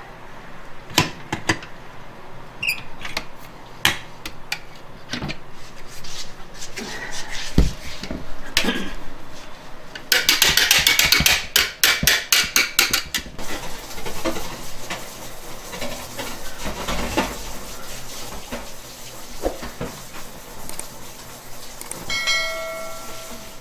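Metal knocks and clinks as a large stainless-steel stand mixer's balloon whisk is unlatched and handled over its steel bowl, with a burst of fast metallic rattling about ten seconds in that lasts some three seconds. A short beep sounds near the end.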